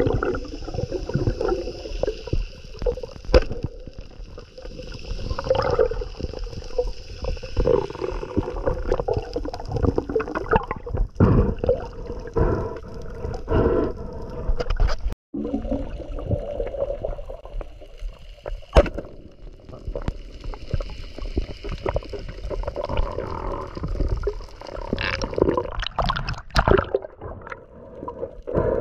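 Sea water gurgling and sloshing around a camera in the water, with scattered small clicks and knocks; the sound cuts out briefly about halfway through.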